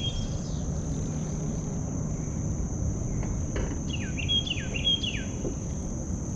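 Riverside insects keep up a steady high-pitched drone, and a bird calls a quick phrase of three short falling notes about four seconds in, over a low rumble.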